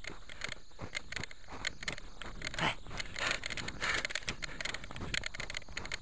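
Footsteps crunching on hard, crusted snow at a walking pace, about two crunches a second.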